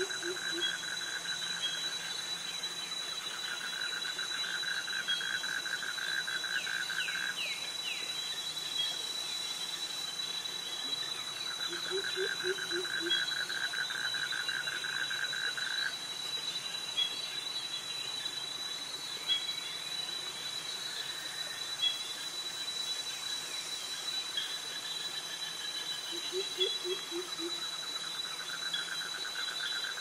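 Tropical forest insect chorus of cicadas and crickets: a steady high-pitched drone with a hissing shimmer above it, and a lower pulsing buzz that comes in bouts of about four seconds, three or four times. A short low call of a few quick notes sounds three times, about every fourteen seconds.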